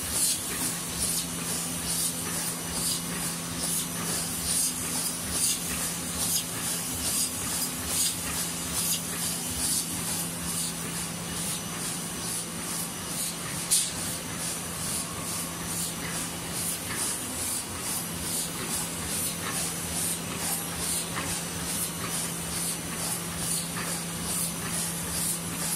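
ACE interfold dispenser napkin machine with lamination and two-colour printing running at speed: a steady hum with a hiss over it and a fast, irregular ticking from the folding and roller sections, with one sharper click about halfway through.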